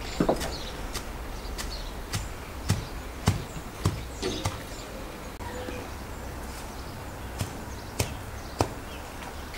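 Chopping with a blade against a cutting board: short, sharp strikes at a slow, even pace, about one every half second for four seconds, then a pause and three more spaced strikes near the end.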